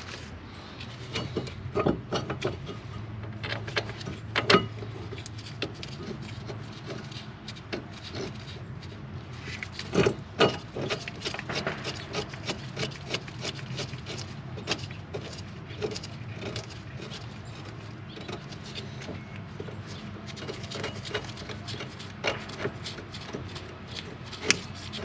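Irregular metallic clicks, knocks and scraping as the brake caliper bracket bolts are threaded in by hand, with a few louder knocks, over a steady low hum.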